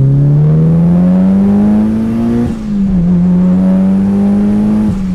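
Mitsubishi Lancer Evo's turbocharged four-cylinder engine pulling hard through the gears, heard from inside the cabin: the engine note climbs steadily for about two and a half seconds, drops at an upshift, then climbs again to a second upshift near the end.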